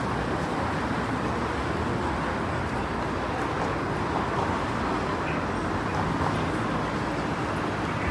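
Steady city street ambience: a continuous wash of road traffic noise.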